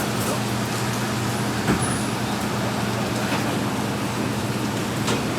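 A steady low hum under an even rush of background noise, with a few faint knocks.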